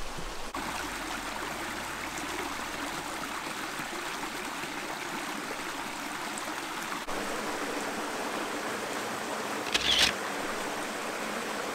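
Steady rush of running water. About ten seconds in comes a brief, sharp, high-pitched sound, the loudest moment.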